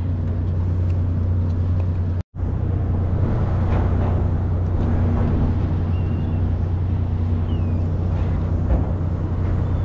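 A fishing vessel's engines and deck machinery running with a steady low hum. The sound cuts out for an instant about two seconds in.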